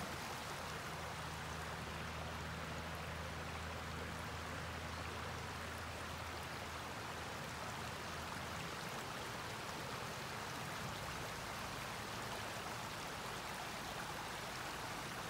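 Steady rush of flowing river water, with a faint low hum underneath that stops about nine seconds in.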